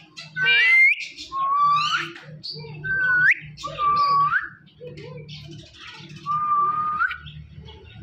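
Indian ringneck parrot whistling: about five clear whistles, most a held note that flicks sharply upward at the end.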